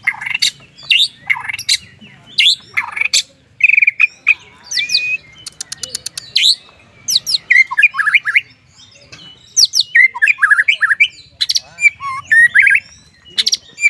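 White-rumped shama (murai batu) singing hard in its cage: a fast string of loud, varied phrases, with clear whistles, gliding notes, sharp clicks and rapid trills one after another.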